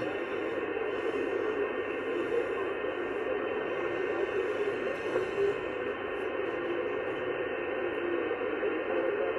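Static and hiss of the 11-metre band heard through an sBitx shortwave transceiver's receiver in USB mode, steady and muffled, with nothing above the receive filter's upper edge.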